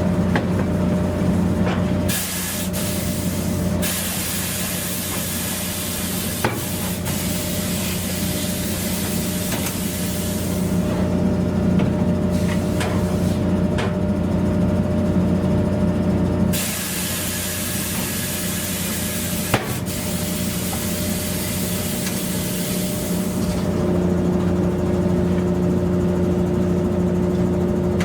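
Steady machine hum with long stretches of hissing spray that start and stop abruptly several times, and a single click about two-thirds of the way through.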